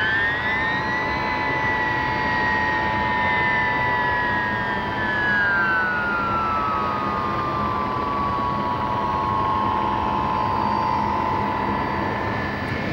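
Beriev A-40 Albatross amphibian's jet engines running as it moves across the water after splashdown: a steady rushing noise with a whine. One whine rises in pitch over the first second, then slowly falls over the next several seconds.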